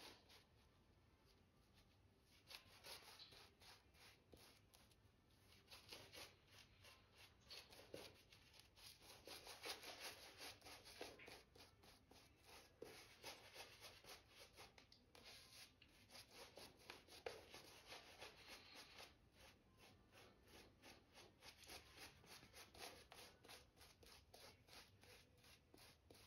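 Faint, quick scratchy rubbing of a shaving brush's bristles swirling lather over a stubbled face, in many short irregular strokes.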